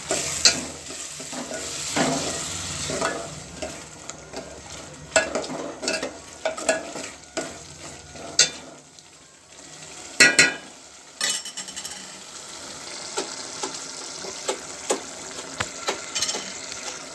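Onion and spice masala sizzling in hot oil in a pan with a little water just added, while a spoon stirs it, scraping and knocking against the pan. The knocks come irregularly, with the loudest clanks about ten and eleven seconds in.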